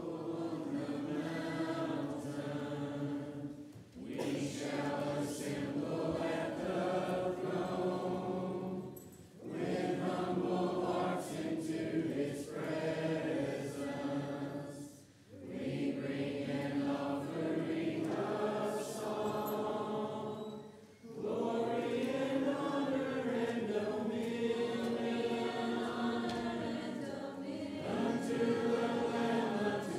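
Church congregation singing a hymn unaccompanied, in phrases of five or six seconds with brief breaks between lines.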